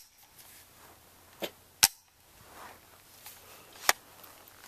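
Sharp isolated cracks over a faint background hiss: a lighter one about a second and a half in, then two strong ones about two seconds apart.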